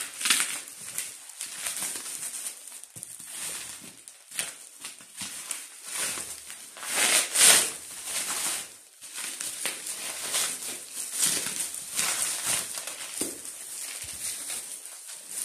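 Bubble wrap and plastic packaging crinkling and rustling as it is handled and pulled off by hand, in irregular crackly bursts, the loudest about seven seconds in.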